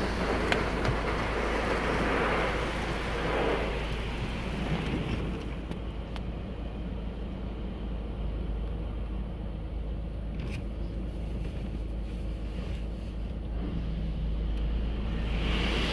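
Ryko Radius HT touchless car wash spraying the car with water, heard from inside the cabin: a steady hiss of spray over a constant low hum, heavier in the first few seconds, easing in the middle, and heavier again near the end.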